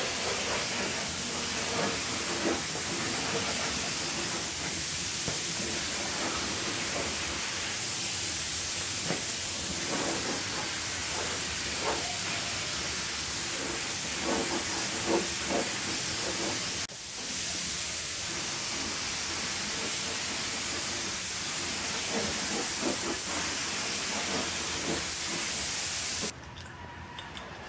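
Gravity-feed compressed-air touch-up spray gun spraying paint, a steady hiss that pauses briefly about 17 seconds in and cuts off about a second before the end.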